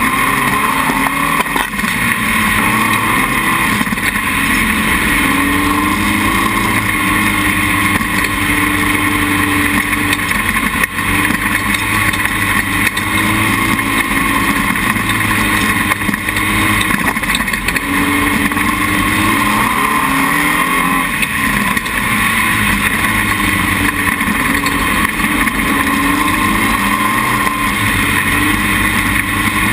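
Dune buggy engine running steadily under load while driving over soft sand, its pitch rising and falling a little with the throttle.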